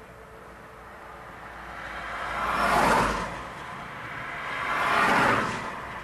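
Two vehicles passing one after the other, each a rush of road noise that swells and fades; the first peaks about halfway through and the second near the end.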